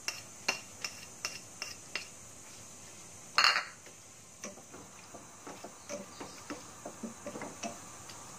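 Quick sharp taps of a utensil against a plastic bowl as leaves are knocked out into a pan, one louder clatter about three and a half seconds in, then a slotted spatula stirring through thick coconut-milk sauce in a stainless pan with soft knocks and scrapes.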